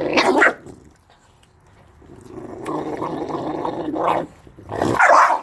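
Renascence Bulldogge puppy growling over a raw turkey carcass: a low rumbling growl of about two seconds, broken by short sharp snarls near the start and near the end. The puppy is guarding its food from its sibling.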